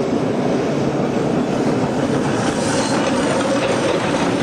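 Vintage electric tram running along its track, a steady noise of wheels on rail.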